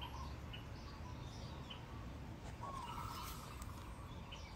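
Birds chirping in the background: scattered short, high chirps and a few brief whistled notes, over a steady low hum.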